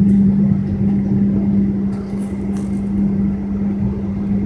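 Steady cabin hum of a Boeing 777-200ER, a strong low drone over a rumble, with a few faint ticks about two seconds in.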